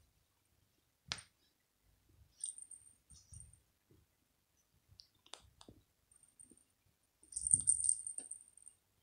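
Small bell inside a toy ball jingling in short, scattered bursts as a cat bats at it, with a few sharp clicks and soft rustling. The longest and loudest jingle comes near the end.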